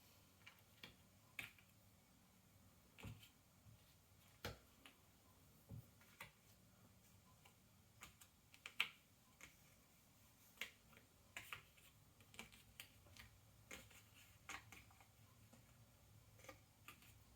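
Cardboard jigsaw puzzle pieces being handled on a table: irregular soft clicks and taps as pieces are picked up, set down and pressed into place, with one sharper click about nine seconds in.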